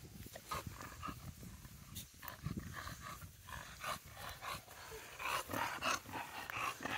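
An English bulldog and a Boykin spaniel playing together, making short dog sounds in quick bursts that come more often in the last two seconds.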